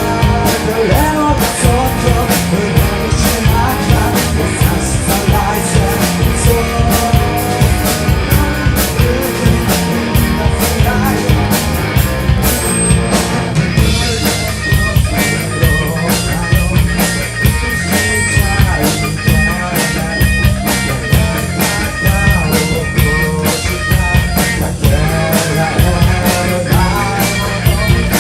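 Live rock band playing a song: drum kit and electric guitar, loud and continuous.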